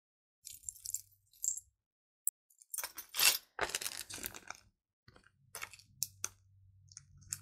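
Chunky gold-tone costume-jewelry bracelet clinking and clicking as it is handled, in several short clusters of small metallic clicks, with one brief high ping a little over two seconds in.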